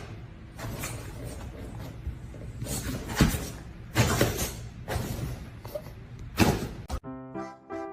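Irregular rustling and scuffing with several knocks and thumps, then music starts near the end.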